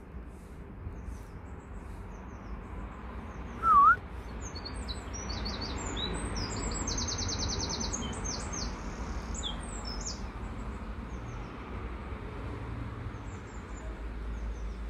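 Small songbirds chirping high in pitch, with a fast trill about seven seconds in, over a steady low background rumble. About four seconds in, one short loud squeak dips and rises in pitch.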